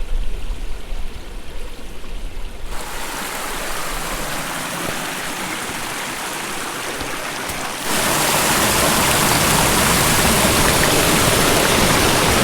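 Creek water rushing and splashing over rocks, a steady hiss that gets suddenly louder about eight seconds in. A low rumble comes before it in the first couple of seconds.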